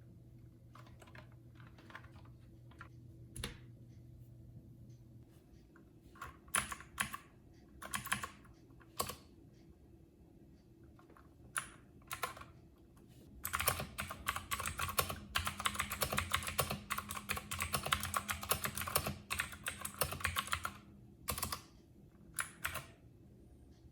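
Clicky blue switches of an Ajazz AK33 mechanical keyboard being typed on. Scattered single keystrokes and short bursts come first. About halfway through comes fast, continuous typing for roughly seven seconds, then a few last keystrokes near the end.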